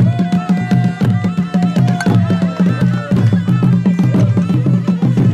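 Music with a fast, steady drum rhythm. A single high note is held for about the first three seconds and drops slightly as it ends.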